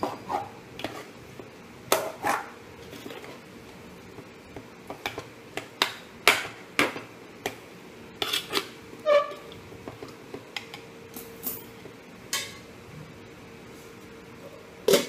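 A spoon knocking and scraping against an aluminium pot as curry is stirred, in irregular clinks and clunks. Near the end there is a louder clank as the aluminium lid is handled.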